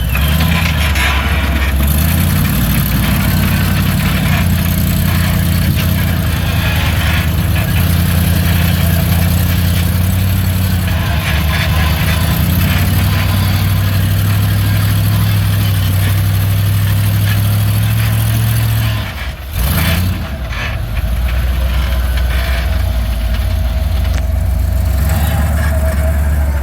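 Off-road rock buggy engine running under load and revving up and down on a hill climb, with a brief drop about nineteen seconds in.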